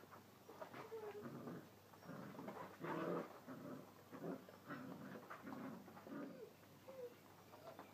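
Puppies play-fighting, giving a string of short vocal sounds, some of them brief whines that rise and fall in pitch; the loudest burst comes about three seconds in.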